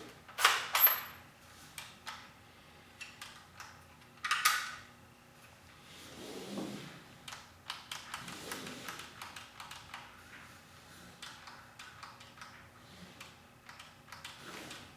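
Handling noise: scattered clicks, taps and rustles, with two louder noisy bursts about half a second in and one about four seconds in.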